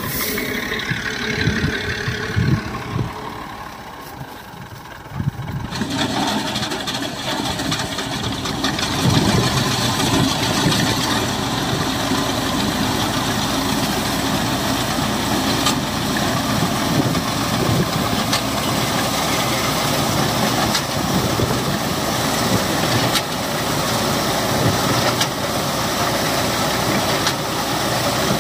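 Tractor engine running as it drives a tractor-mounted reaper-binder cutting standing wheat, with the machine's mechanical rattle. Quieter for the first few seconds, then louder and steady from about six seconds in.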